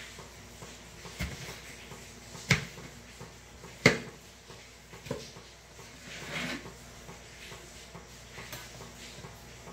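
Kitchen knife knocking on a plastic cutting board while tomatoes are cut: four sharp knocks about a second or so apart, the loudest about four seconds in, then a brief scrape.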